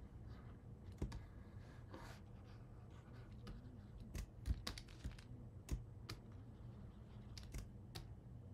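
Irregular faint clicks of a computer keyboard and mouse while working in 3D sculpting software, over a low steady hum.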